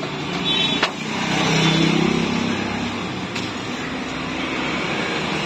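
Street traffic: a motor vehicle engine running close by, swelling for a couple of seconds, over a steady urban background, with a sharp click just under a second in.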